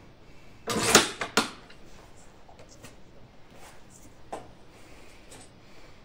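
Bolt of a Mauser bolt-action rifle being worked to chamber a round: a sliding metallic rasp about a second in, followed by a sharp click as the bolt locks down. A few faint small clicks follow a few seconds later.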